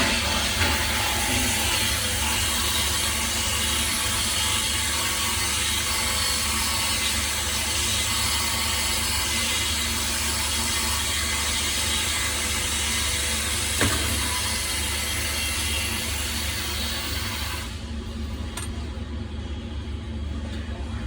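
Steady loud background noise of a workshop, an even hiss with a low hum, and a single sharp click about 14 seconds in. The hiss thins out about three seconds before the end.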